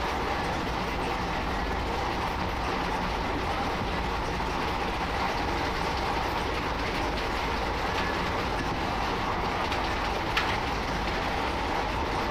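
Train running along the rails, heard from aboard: a steady rumble and rush of wheels on track, with a sharp click about ten seconds in.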